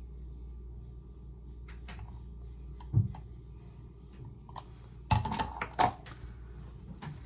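Kitchen containers and utensils handled on a counter while olive oil is measured into a vinaigrette: a dull knock about three seconds in and a quick run of knocks and clinks around five to six seconds in, over a steady low hum.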